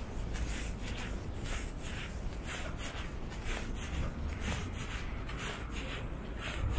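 Footsteps of a person walking at a steady pace on stone paving, about two steps a second, over a steady low rumble.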